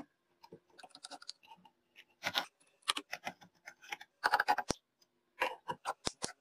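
Irregular clicks, taps and short scrapes of hand tools against the corroded metal housing of an old hand drill as it is worked on for restoration, with two sharp clicks in the second half.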